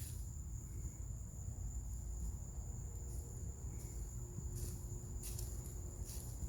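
A steady, high-pitched insect call, one unbroken tone, over low rumble, with a few short rustling steps on leaf litter in the second half.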